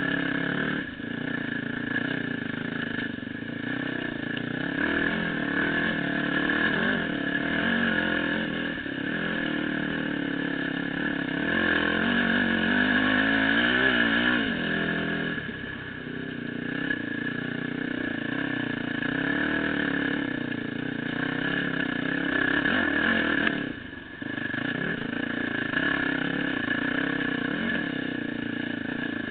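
Dirt bike engine running as the bike is ridden along a rough trail, its revs rising and falling with the throttle, wavering quickly around the middle. The sound dips briefly about three-quarters of the way through before picking up again.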